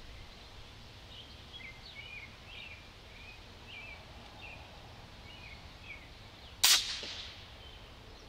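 A single shot from a .257-calibre AirForce Texan big-bore PCP air rifle, a sharp loud crack about two-thirds of the way through that trails off quickly. Before it, a low wind rumble and a small bird chirping.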